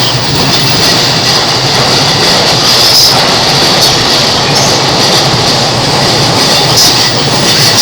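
JR East electric commuter train running past close by on the station tracks: a steady loud rumble of wheels on rail, with scattered clicks.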